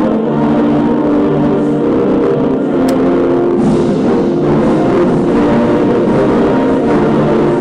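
Instrumental music with drums and long held notes.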